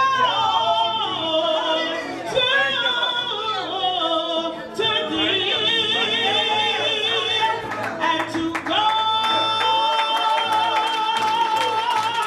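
Music with a solo singer over accompaniment: wavering, ornamented sung lines, then one long held note starting about nine seconds in.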